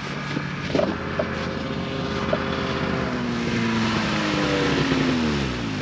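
Snowmobile engine running as the sled drives up, its pitch falling steadily over the last few seconds as it slows down and stops.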